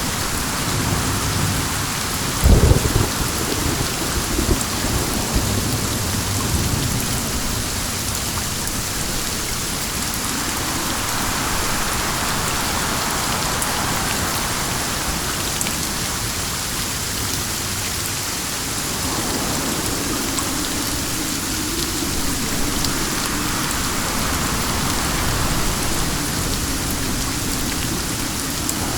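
Steady rain with wind, its hiss swelling and easing gently. A sharp crack of thunder comes about two and a half seconds in, followed by a low rumble that fades over the next few seconds.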